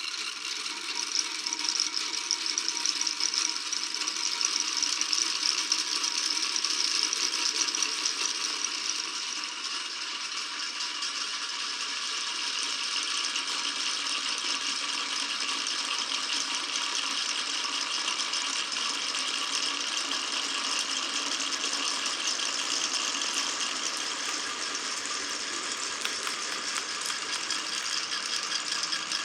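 Marbles rolling and clattering along a marble run track in a continuous dense rattle, loudest for the first several seconds and then steady.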